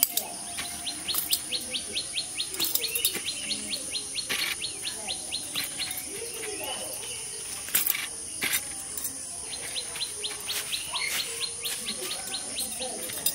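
Outdoor birdsong: small birds chirping, one repeating a rapid dry trill of ticks about ten a second in two long runs, over a steady high insect whine. A few sharp clicks and light leaf rustles cut through, the loudest moments.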